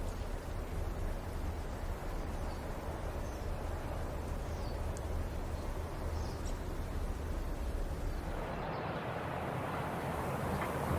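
Ambient sound of a city plaza: a steady low rumble of traffic with a few faint bird chirps. About eight seconds in, a louder, even rushing noise comes in.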